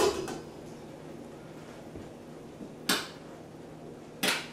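A metal pot lid clanks onto a cooking pot on a gas stove, then two more short knocks come about three and four seconds in, over a faint steady hum.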